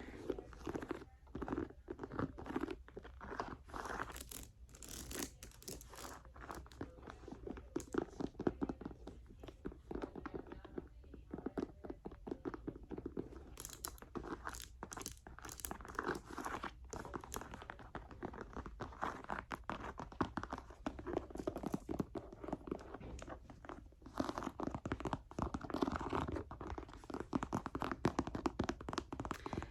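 Fingers tapping and scratching on a Gucci leather handbag, in quick runs of crisp clicks and crunchy rustles.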